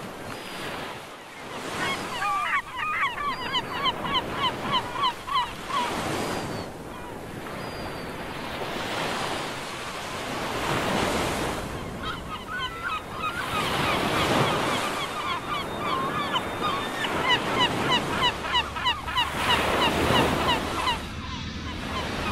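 Waves washing on the shore with wind, rising and falling every few seconds. Over them, birds call in rapid runs of short repeated notes, about four a second, in two long spells.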